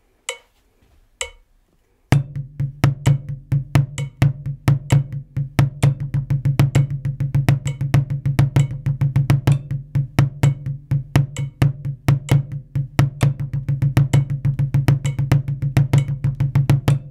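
Metronome clicks at 65 beats per minute, then about two seconds in drumsticks start on a practice pad: a straight sixteenth-note bar of alternating strokes with accents, then the same accent pattern as triplets with six-stroke rolls filling the gaps. The playing stops just before the end.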